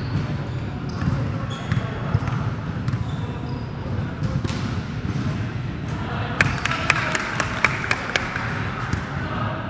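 Basketball bouncing on a gym floor during play, a run of sharp knocks about six to eight seconds in, over hall noise and scattered voices.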